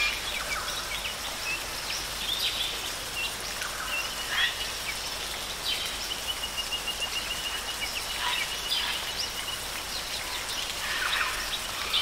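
Outdoor nature ambience: birds calling and chirping over a steady hiss, with a rapid trill of evenly repeated notes from about six to nine and a half seconds in.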